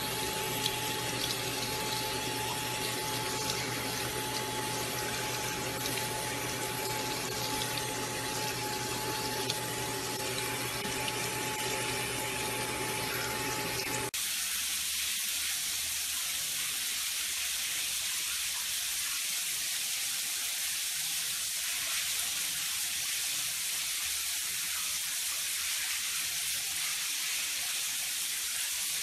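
Water running from a bathroom sink tap over a wet kitten held under the stream, with a faint steady whistle-like tone. About halfway through it cuts abruptly to a steadier, higher hiss of spraying water.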